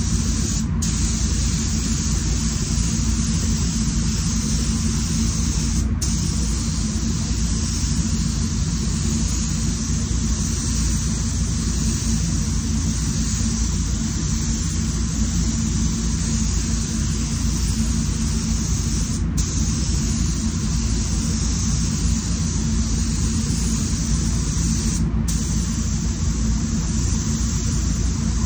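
Steady hiss of a SATA Jet 5000 RP spray gun with a 1.3 mm nozzle spraying paint, over the constant low rumble of the paint booth's airflow.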